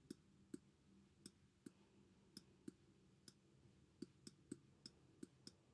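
Faint, irregular clicks of a stylus tip tapping on a writing tablet as numbers are handwritten, two or three a second.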